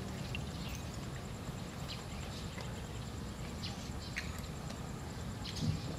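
Open-air ambience: a steady low rumble with sparse, brief bird chirps and a faint high insect whine, and one short knock near the end.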